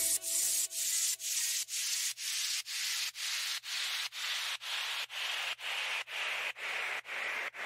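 Rhythmic swishing noise, about two even strokes a second, with a faint low hum underneath.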